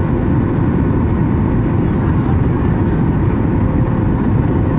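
Steady cabin noise of a Boeing 737 MAX 8-200 climbing after takeoff, heard from a window seat beside the wing: a low, even rumble from its CFM LEAP-1B engines and the rushing air, with a faint steady hum on top.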